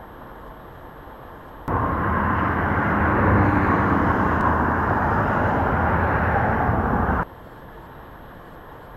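Steady road and tyre noise of a car driving on a highway. About two seconds in, a much louder rush of highway traffic cuts in suddenly for around five seconds, then stops abruptly.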